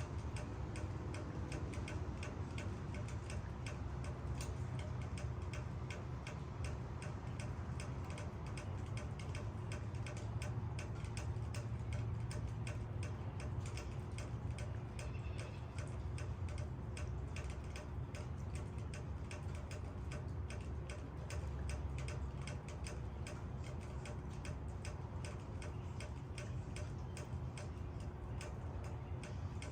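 Steady rain, with many separate drops tapping irregularly on leaves over an even low rumble.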